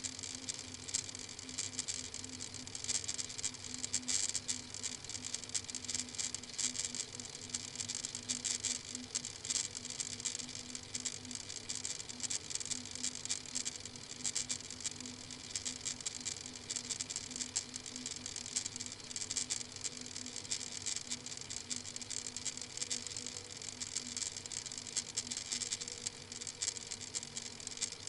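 Steady crackling hiss with a low electrical hum underneath, unchanging throughout: the background noise of a live webcam's microphone.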